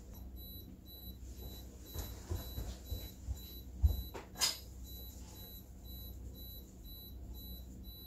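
Camera self-timer beeping steadily about twice a second, a countdown before the shutter fires. A couple of knocks come about halfway through.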